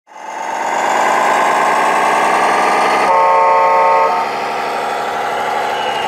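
Scale RC truck's engine sound running steadily, fading in at the start, with a horn blast of about a second near the middle.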